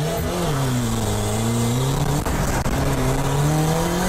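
Small 800cc turbocharged engine of a Lada-based Porsche replica revving as the car is driven hard, its pitch dipping about a second in and then climbing steadily toward the end.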